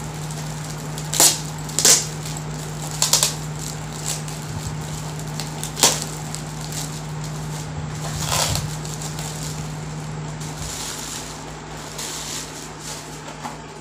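Shiny metallic gift-wrap paper crinkling and tearing as a present is unwrapped by hand, in a handful of short, sharp rustles, with softer rustling in between.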